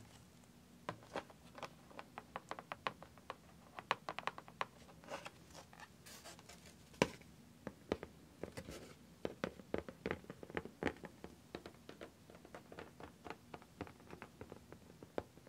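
Clear plastic film over a tray of coloured sand crinkling under fingers: a dense, irregular run of small crackles and clicks.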